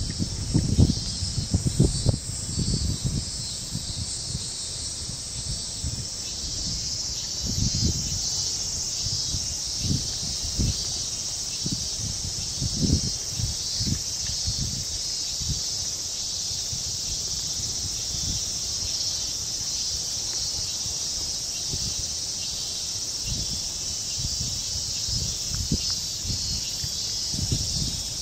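Insects chirring steadily in a high-pitched, continuous drone, with scattered low rumbling bumps on the microphone, heaviest in the first few seconds.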